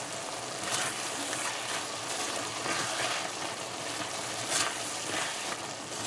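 Squash and chicken curry sizzling and simmering in a metal pot while a spatula stirs it, with a few brief scrapes of the spatula against the pot, the loudest about four and a half seconds in.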